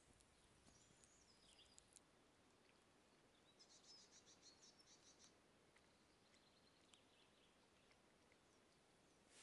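Faint songbird song over near silence: a short high warbling phrase about a second in, then a quick high trill in the middle, and a weaker phrase after it.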